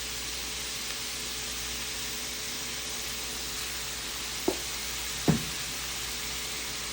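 Chicken sizzling steadily in a skillet, an even frying hiss. Two short knocks about four and a half and five and a half seconds in.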